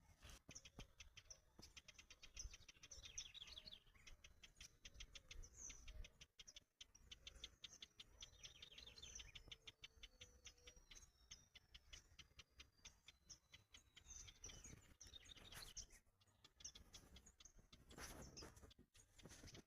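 Faint birdsong: several small birds chirping in rapid trills, with a few thin gliding whistles.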